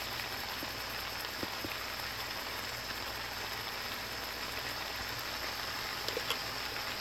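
Stir-fry vegetables sizzling steadily in oil in a hot frying pan, with a few faint clicks.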